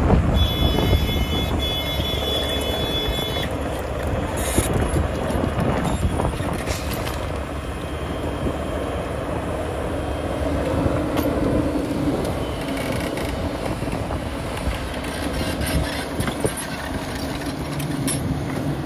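Kato HD1023 tracked excavator's diesel engine running under load with its hydraulics working as it lifts a bundle of whole stick sugar cane onto a trailer, with a few knocks along the way.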